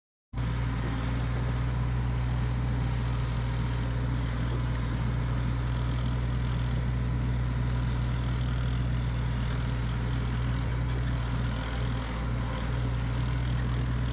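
Sany SY55 excavator's diesel engine running steadily with a constant low hum, cutting in abruptly just after the start.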